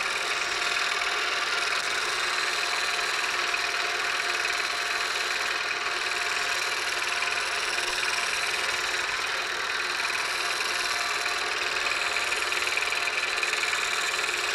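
Milling machine spindle running steadily while an end mill takes the last light finishing pass around a radius in aluminum, the workpiece fed round by a stepper-motor-driven rotary table. A steady machine hum with a few held tones, unchanging throughout.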